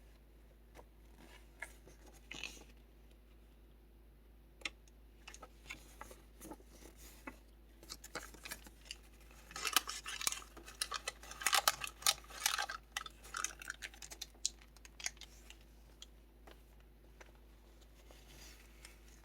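Paper pages of a handmade kraft-envelope junk journal being handled and turned: scattered light clicks and rustles, with a few seconds of dense crinkling paper near the middle.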